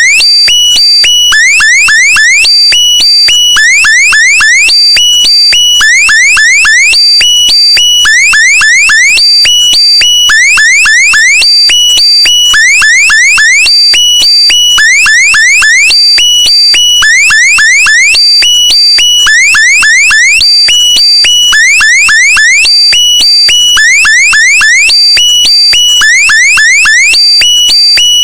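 Electronic alarm sounding continuously: short bursts of quick rising chirps, repeating about once a second without change.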